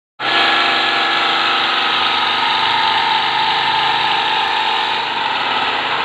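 Electric table fan motor, its blade removed, running with a loud, rough rasping noise over a steady hum, typical of worn shaft bearings. About five seconds in, the hum drops away and the sound starts to fade.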